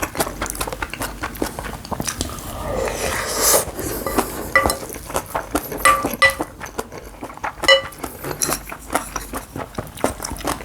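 A spoon clinking and scraping against a bowl of bibimbap as it is mixed and eaten, with a longer scrape a few seconds in and several short ringing clinks after it.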